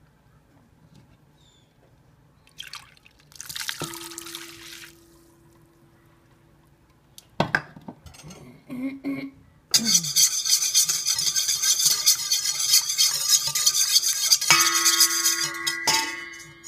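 Wire whisk beating a yeast-and-water mixture in a stainless steel bowl: a fast, steady metallic clatter of the wires against the bowl, starting about ten seconds in and lasting about six seconds. The bowl rings over the last second of it.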